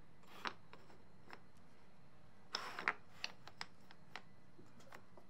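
A few light clicks and taps of wooden blocks being handled and set down on a workbench, spaced irregularly, the loudest a small cluster near the middle.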